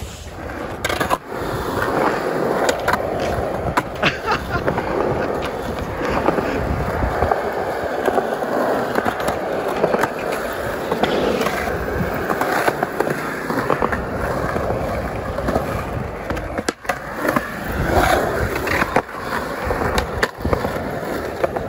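Skateboard wheels rolling steadily on smooth concrete, broken by several sharp clacks as the board and trucks strike the ground and a ledge during tricks.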